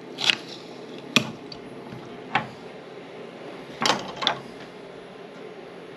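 A handful of sharp knocks and clicks as a knife cuts through a herring in a bait-cutting box and the box and bait are handled on a wooden table, over a steady low room hum.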